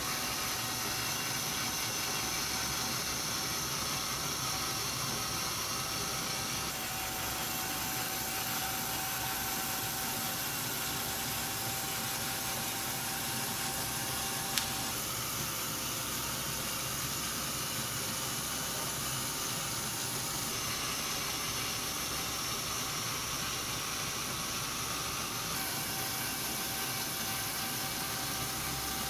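LEGO Power Functions motor and gear train whirring steadily as the toy car drives and turns its marker holder, with a thin whine over the whirr. The sound changes abruptly several times, and one sharp click comes about halfway through.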